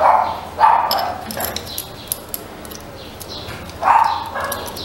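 Four short voice-like sounds, the first three in the first second and a half and the last about four seconds in, which could come from a dog or a person. Light metallic clicks come between them as the camshaft gear and timing chain are fitted at the cylinder head of a Honda CG 150 engine.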